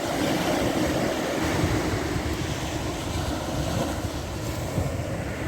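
Sea waves washing on a beach, with wind buffeting the microphone as a steady low rumble.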